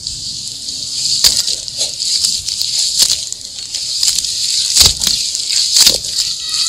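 Hands squeezing and kneading wet sand-and-cement mud in water: a continuous wet crackling and squelching, with several sharper squelches scattered through.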